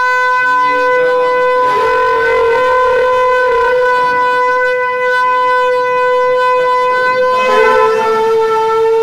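A conch shell (shankha) blown in one long, steady, horn-like note. Its pitch steps slightly lower about seven and a half seconds in.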